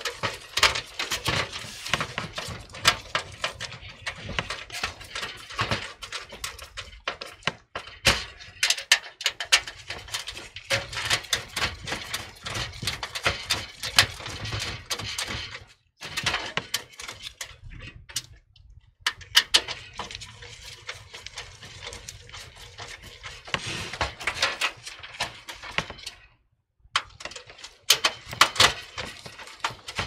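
Phillips screwdriver driving the mounting screws of a power supply into a steel PC case, with the unit handled in place: a steady run of irregular metal clicks, scrapes and rattles, broken by a few short silent gaps.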